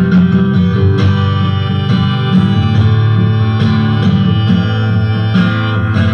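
Acoustic guitar being strummed in a steady rhythm, with a harmonica playing held notes over it.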